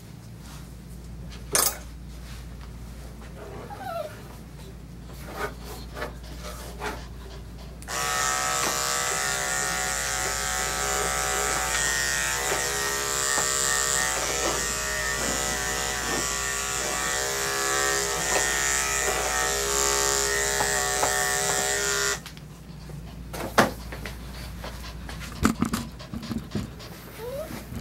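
Electric dog grooming clippers switch on about eight seconds in, run steadily for about fourteen seconds while trimming the dog's coat, then switch off.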